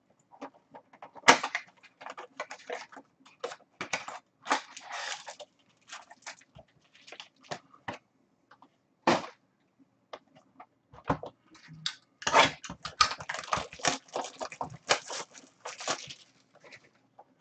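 Foil trading-card pack wrappers crinkling and tearing, with cards being handled and shuffled: short, irregular crackles with one sharp one about a second in and a busier stretch near the end.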